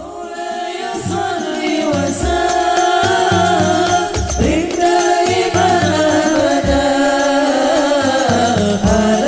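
Islamic devotional song (sholawat): wavering chant-like singing over a steady low drum beat.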